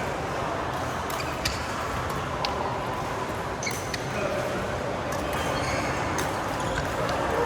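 Badminton hall noise with background voices and a few sharp taps of rackets hitting a shuttlecock, spaced irregularly about a second or more apart.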